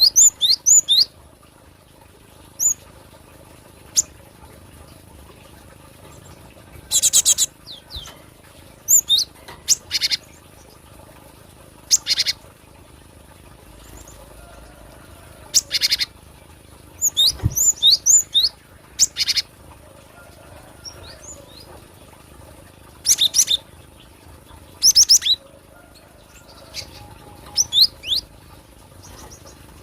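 Cinereous tit (gelatik batu) calling: irregular bursts of short, high-pitched chirping notes mixed with harsh, rasping calls, coming every second or few with short pauses between.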